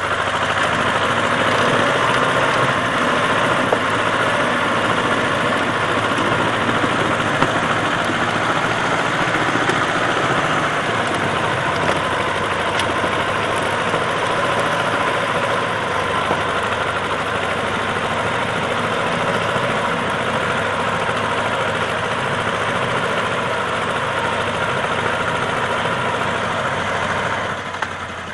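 T-25 Vladimirets tractor's two-cylinder air-cooled diesel engine running loudly and steadily, its level dropping a little near the end.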